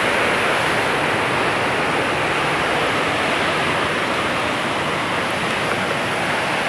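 Waterfall at a dam: a steady, even rush of falling water.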